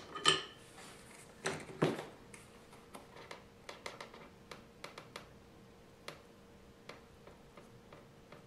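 Clicks and taps of a soldering iron tip and a small DC fan motor being handled while a wire is soldered to the motor's terminal: a few louder knocks in the first two seconds, then irregular light ticks. A faint steady hum runs underneath.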